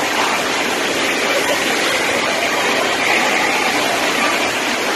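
Rushing whitewater of a river rapid: a loud, steady, even hiss of moving water.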